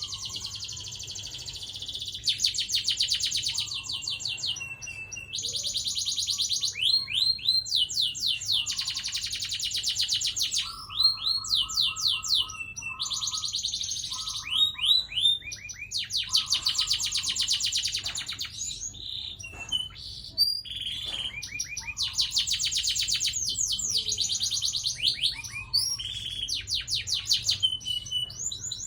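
Domestic canary singing long rolling trills: runs of very fast repeated high notes lasting a second or more, broken by slower sweeping notes and a few short lower steady notes.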